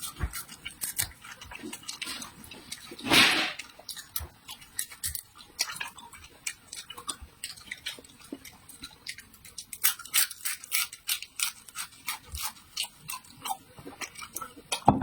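Close-up eating sounds: a person chewing crisp food, with many small sharp crunching clicks and a louder crunch about three seconds in.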